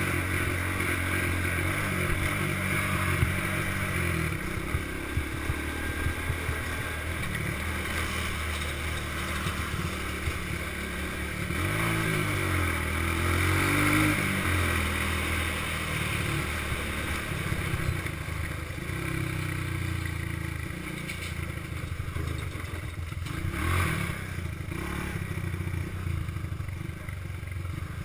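Small single-cylinder ATV engine running under way on a rough dirt road, its pitch rising and falling with the throttle around the middle, with clattering from the machine over the bumpy surface.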